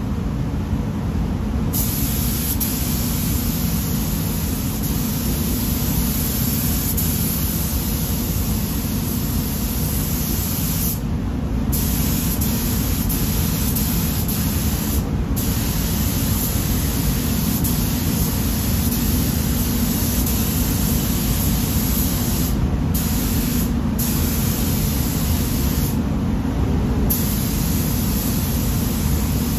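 Gravity-feed spray gun hissing as pearl white paint is sprayed. The hiss starts about two seconds in and stops briefly several times as the trigger is let off between passes, over a steady low rumble.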